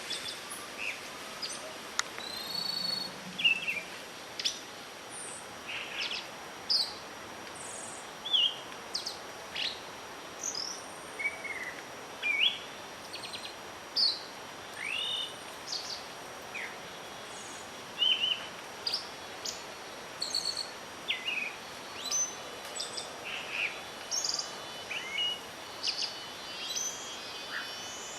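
Several songbirds chirping and calling: short chirps and rising whistles, one or more a second, over a steady background hiss with a faint steady high tone.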